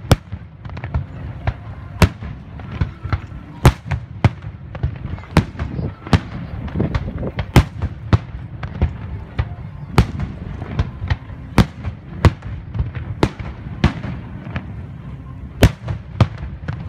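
Fireworks display with shells bursting in quick, irregular succession: loud sharp bangs about every half-second to second, with smaller pops and crackles between them.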